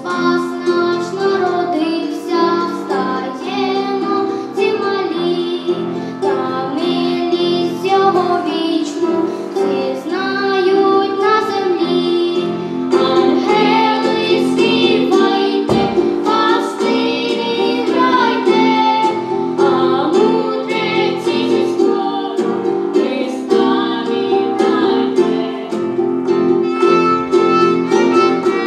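Children singing a song with instrumental accompaniment.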